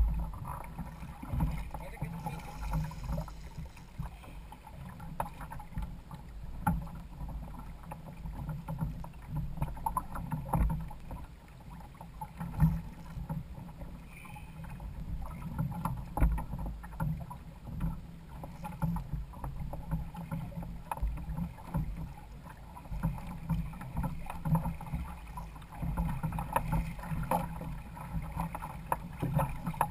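Water slapping and splashing against the hull of a Hobie Adventure Island sailing kayak under way, over a low rumble, with many irregular short knocks.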